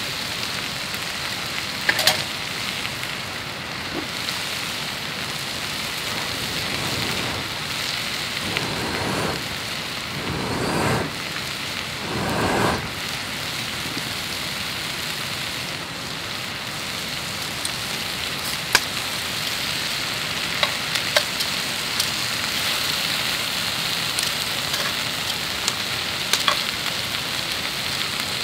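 Food sizzling steadily as it fries in a pan, with scattered sharp clicks and three brief louder swells around the middle.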